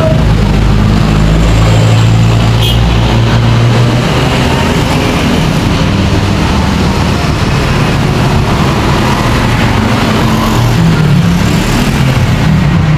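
A steady, loud low hum of a running engine or motor.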